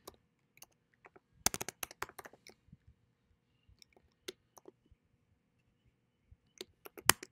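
Keystrokes on a computer keyboard: typing in short bursts of clicks with pauses between, the busiest runs about a second and a half in and near the end.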